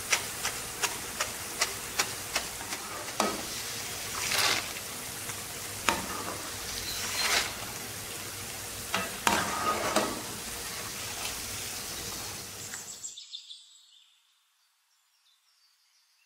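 Boondi (gram-flour batter drops) deep-frying in hot oil: a steady sizzle full of sharp crackling pops, with a few swishes of a slotted spoon stirring through them. The crackling means the boondi have turned crisp and are ready to be taken out. The sound cuts off near the end.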